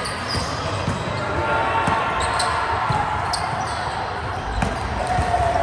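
Volleyball match play on a hard court: a ball thudding, with short high sneaker squeaks. Voices murmur in the background.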